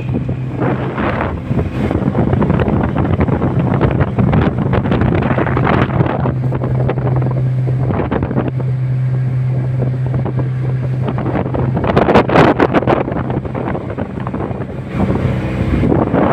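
Motorboat engine running steadily below medium throttle, a low even hum under heavy wind buffeting the microphone and the rush of water. There is a louder gust of buffeting about twelve seconds in.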